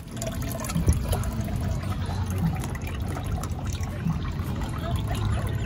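Water running and trickling steadily in a duck-race water trough.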